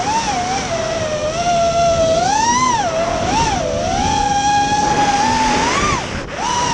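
FPV racing quadcopter's brushless motors and propellers whining, the pitch rising and falling constantly with the throttle, with a brief drop near the end.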